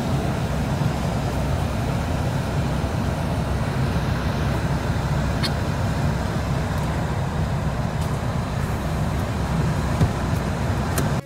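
Car running, a steady low rumble heard from inside the cabin, with a couple of faint clicks.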